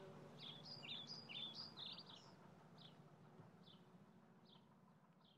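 Faint birds chirping: a quick run of short chirps in the first two seconds, then single chirps about once a second.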